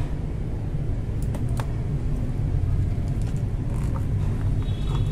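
A battery spot welder firing its copper probes onto nickel strip on a battery cell: two sharp snaps a third of a second apart, about a second and a half in, over a steady low rumble.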